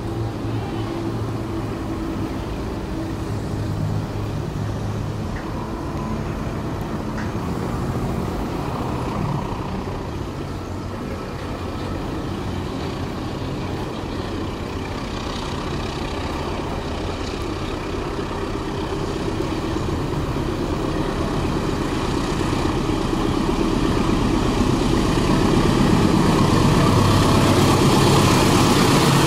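Diesel-electric locomotive hauling a passenger train as it approaches, with a low engine rumble that grows louder over the last several seconds.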